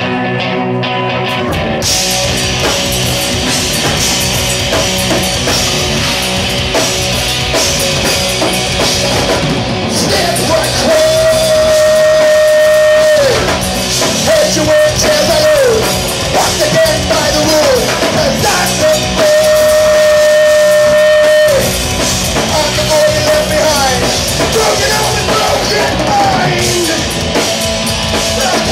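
Rock band playing loud, with electric guitar and drum kit; the full band comes in about two seconds in. Long held notes twice slide down at their ends.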